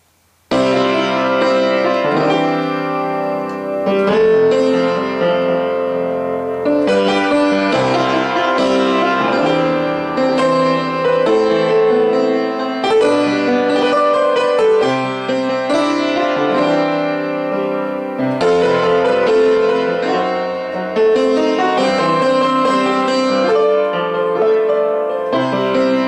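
Piano playing a melody over held chords, starting about half a second in.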